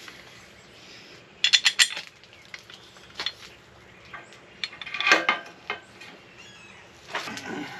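Metal hardware and tools clinking and knocking against a steel winch bumper as a bolt is fitted: a quick run of sharp clinks about a second and a half in, then scattered knocks and a short clatter near the middle and again near the end.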